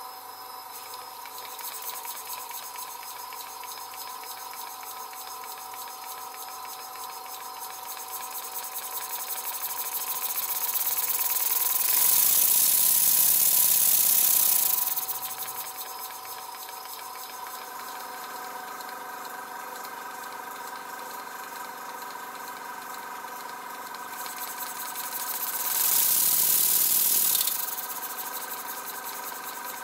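Stuart S50 single-cylinder horizontal model steam engine running on compressed air, a steady mechanical hum with its flywheel spinning freely. It swells into a loud hiss of rushing air for a few seconds around the middle and again briefly near the end. The engine runs ever so smoothly now that its cylinder cover is realigned and the crosshead no longer catches the rails.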